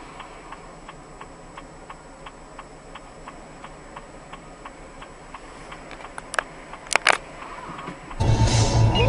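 Car turn-signal relay ticking steadily, about three ticks a second, with a few sharper clicks about six to seven seconds in. Near the end a much louder rumbling noise cuts in suddenly.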